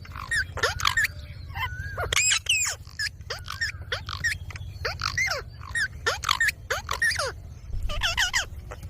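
Indian ringneck parakeet giving a rapid run of short, shrill squawks and chattering calls, two or three a second, over a steady low hum.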